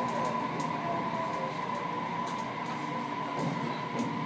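JR Kyushu 815 series electric train running, heard from inside its rear cab: a steady running noise with a steady high hum and a few light clicks.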